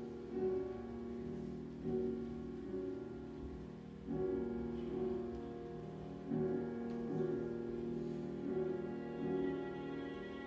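Classical piano music: chords struck every one to two seconds, each ringing on, with higher notes joining about six seconds in.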